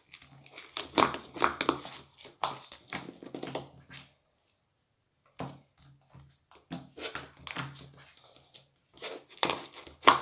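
Sticky slime being stirred and squished in a bowl: irregular clusters of wet crackles and clicks. The sound cuts out completely for about a second midway.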